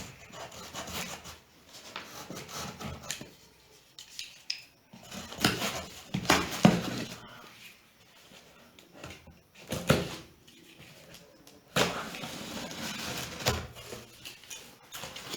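Cardboard box and packaging being handled and opened: irregular rustling and rubbing with a few sharp knocks, the loudest about six to seven seconds in and again near ten seconds.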